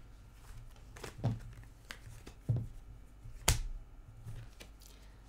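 Tarot cards handled on a tabletop: four dull taps as cards and the deck are set down, the sharpest about three and a half seconds in.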